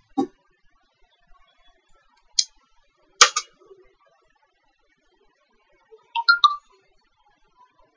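A handful of short, sharp clicks from a computer mouse and keyboard, with quiet between them: one about two and a half seconds in, a sharper pair about three seconds in, and a small cluster a little after six seconds.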